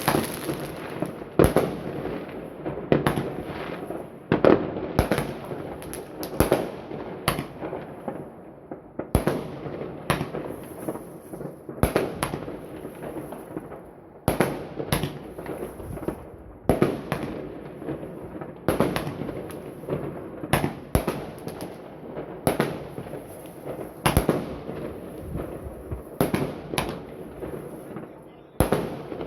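Consumer fireworks going off: a dense, irregular run of sharp bangs and pops from aerial shells and firecrackers, several a second at times, each trailing off in echo.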